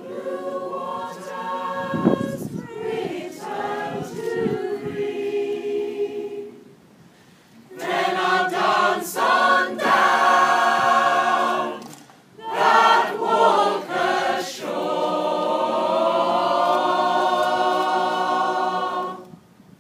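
Mixed choir of women's and men's voices singing a sea shanty unaccompanied, in phrases broken by short pauses. Near the end it holds one long chord, which then stops.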